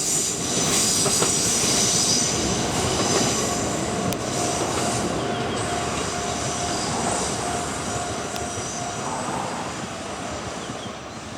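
Kintetsu 12600 series limited-express electric train, two four-car sets coupled into eight cars, running past on the rails and fading as it draws away. A thin high whine from the wheels dies away after about three seconds.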